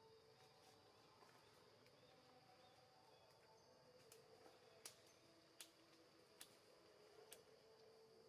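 Near silence: faint forest ambience with a steady high insect drone, and a few sharp clicks in the second half.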